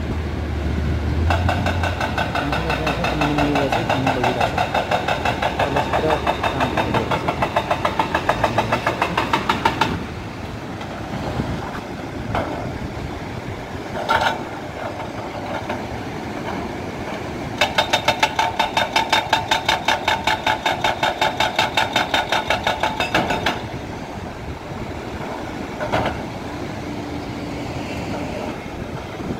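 Excavator-mounted hydraulic rock breaker hammering on river rock in two long runs of rapid, even blows, with the excavator's diesel engine running between them. Single knocks come between and after the runs.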